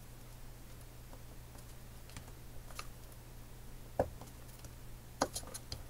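Hands pressing paper pieces down onto a card on a tabletop: light scattered ticks, a sharper tap about four seconds in, and a quick run of clicks near the end.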